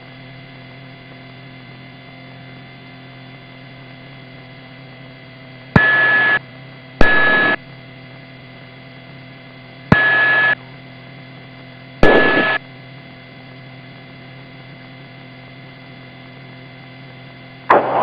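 Police radio channel with a steady hum and hiss, broken four times by short radio key-ups. Each is a sharp click followed by about half a second of steady tone and static, with no words.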